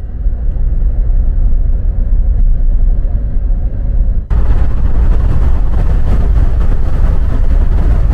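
Loud, steady rumble of a vehicle driving, with road and wind noise. About four seconds in it cuts abruptly to a brighter, hissier rush.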